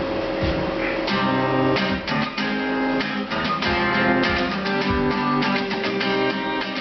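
Acoustic guitar strumming chords in a steady rhythm, starting about a second in: the instrumental intro of a song before the vocals come in.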